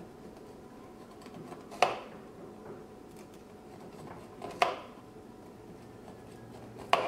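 Kitchen knife scoring a whole raw fish on a plastic cutting board: three sharp taps, about every two and a half seconds, as each diagonal cut is drawn through the skin.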